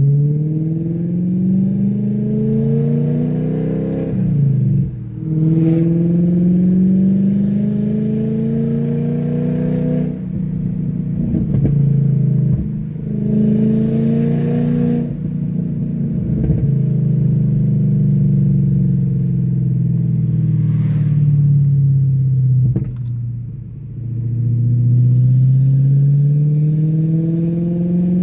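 BMW E39 540i's 4.4-litre V8 running with its exhaust removed behind the primary catalytic converters, so it sounds nearly unsilenced. It pulls up in pitch several times under acceleration with short breaks between, falls away slowly as it comes off the throttle, then climbs again near the end.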